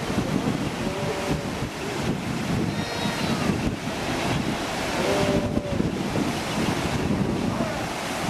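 Surf breaking against a rocky shore, with wind buffeting the microphone. A few short calls from the seabird and sea lion colony break through the noise, about a second in, around three seconds in and around five seconds in.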